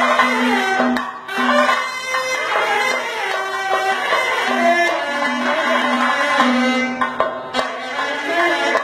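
Kerala traditional music: chenda drums playing with a wind instrument holding long notes that step from pitch to pitch.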